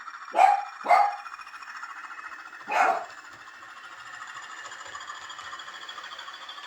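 A dog barks three times, two quick barks and then a third about two seconds later, over the steady electronic diesel engine sound of a Hornby class 20 model locomotive's TTS sound decoder playing through its small speaker.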